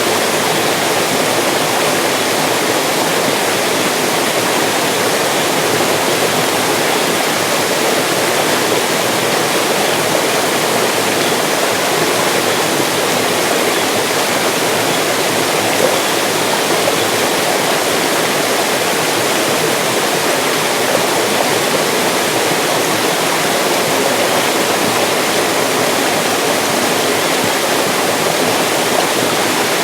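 Mountain stream rushing over rocks, a steady, unbroken flow of water.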